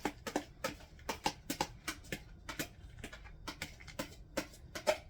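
Spoon clicking and scraping against a bowl, about three light knocks a second, as mayonnaise dressing is added and stirred through chicken salad.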